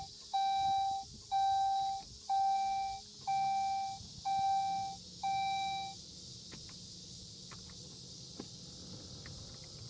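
Saab 9-5 dashboard warning chime beeping a steady tone about once a second, then stopping about six seconds in. A few faint clicks follow.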